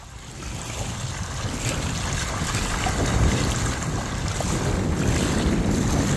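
Small wind-driven waves lapping and washing over a gravel lake shore, with wind buffeting the microphone as a steady low rumble. The sound fades in over the first second or two.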